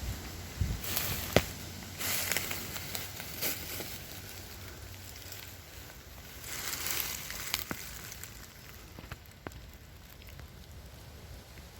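Dry leaves and twigs crackling and rustling underfoot in a few irregular bursts, with a few sharp snaps.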